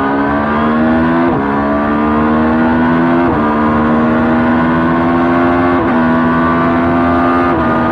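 Motorcycle engine accelerating through the gears: the pitch climbs steadily, then dips briefly at each of about four gear changes.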